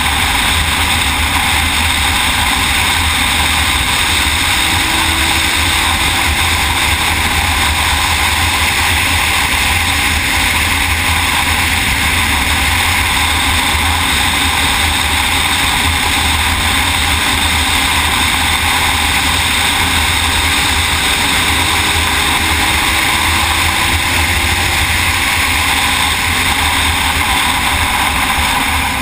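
Racing motorcycle at speed heard through a camera mounted on the bike: engine running under way with heavy wind rush over the microphone, loud and steady.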